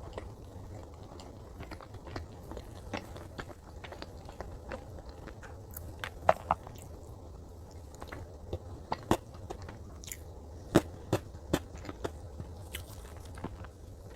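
Close-miked chewing of soft chocolate cake: wet mouth clicks and smacks throughout, with a few louder sharp clicks in the middle stretch.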